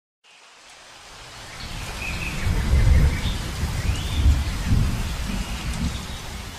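Rain-and-thunderstorm ambience: steady rain hiss with low rolls of thunder, fading in at the start, swelling to its loudest around the middle, then easing off.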